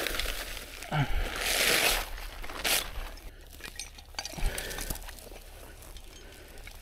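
Metal rigging hardware (shackles and carabiners on a recovery rope) clinking, mixed with dry brush rustling and scraping. The loudest rustle comes about a second to two seconds in.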